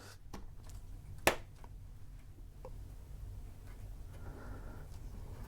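Faint handling of IC chips on a circuit board: one sharp click about a second in and a few light ticks, over a steady low hum.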